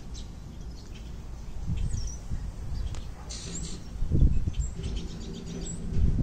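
Wind buffeting the microphone in uneven low rumbles, strongest about four seconds in, with a few short high bird chirps in the background.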